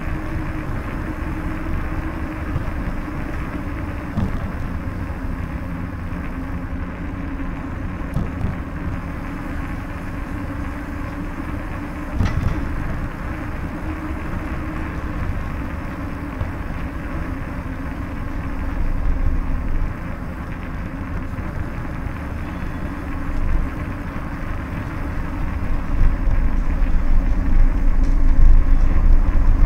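Steady low rumble and hiss of a bicycle ride: wind buffeting the microphone and tyres rolling over stone paving slabs. There is one sharp knock about twelve seconds in, and the rumble swells louder near the end.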